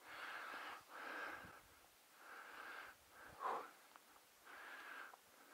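A man breathing heavily close to the microphone, about five hissing breaths in quick succession, the loudest one about three and a half seconds in.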